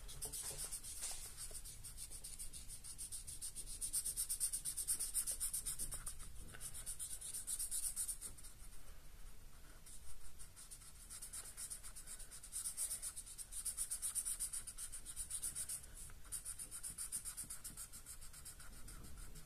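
Brown felt-tip pen scribbling on card paper, rapid back-and-forth colouring strokes in bursts with short pauses.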